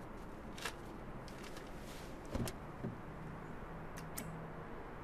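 Quiet handling noises inside a parked car: a few soft clicks and knocks, with one dull thump about halfway through.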